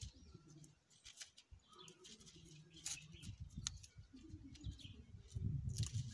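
Small clicks and rustles of a paper seed packet and beetroot seeds being handled during hand sowing, over a faint outdoor background. A louder low rumble comes in about five seconds in.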